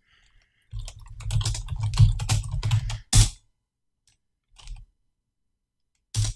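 Typing on a computer keyboard: a quick flurry of keystrokes for about two seconds, then one sharper single keystroke, and two more isolated keystrokes near the end.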